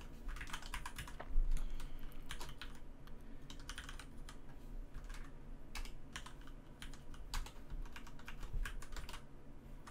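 Typing on a computer keyboard: irregular keystrokes clicking in quick runs with short pauses.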